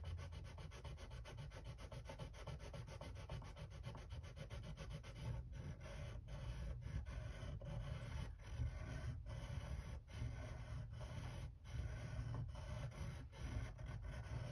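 Steel screwdriver tip rubbed back and forth by hand on a sharpening stone, a steady scraping rub, to polish the roughness off the sides of the blade. In the second half it breaks briefly about once a second as the strokes change direction.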